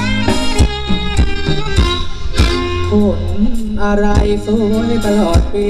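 Live Thai band playing an upbeat ramwong dance tune in a beguine rhythm: a steady drum beat about every 0.6 seconds over a bass line, with a melody line entering about three seconds in.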